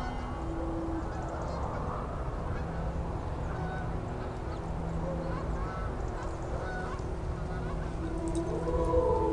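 Flock of geese honking in flight, short calls repeated through the skein, over a low steady rumble.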